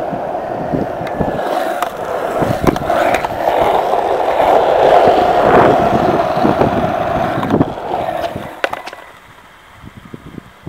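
Hard skate wheels rolling over fresh, gritty asphalt: a steady rolling rumble with scattered sharp clicks. It is loudest mid-way and dies away near the end as the ride slows to a stop.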